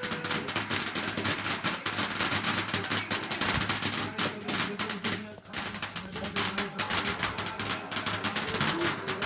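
Fireworks crackling: a dense run of rapid small pops and cracks, many each second, that pauses briefly about five seconds in and then starts again.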